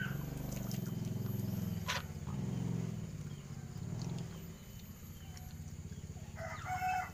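A rooster crowing once near the end, over a steady low hum.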